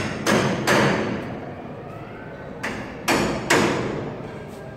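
Hammer blows from construction work, echoing through an empty hall. They fall in sets of three strikes close together, one set at the start and another about three seconds in.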